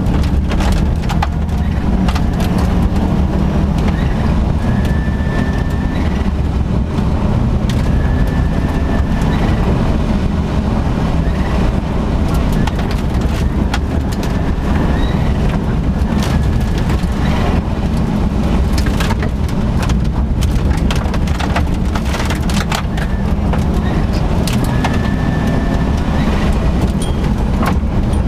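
Subaru Impreza GC8 rally car at full effort on a gravel stage, heard from inside the cabin: the engine rises in pitch again and again as it pulls through the gears. Loose gravel clatters against the underside throughout.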